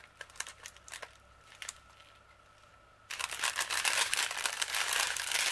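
Small plastic bags of diamond-painting resin drills being handled: a few faint clicks at first, then from about three seconds in a steady run of plastic crinkling and beads clicking as the bags are turned over.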